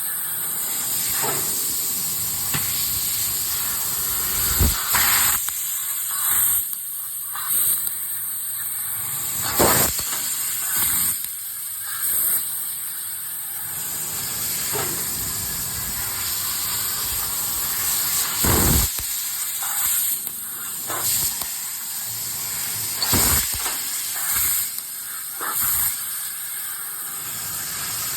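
Fibre laser cutting head cutting 1.5 mm 304 stainless steel with compressed-air assist gas: a steady loud hiss, broken by about a dozen brief louder bursts at irregular intervals of one to three seconds.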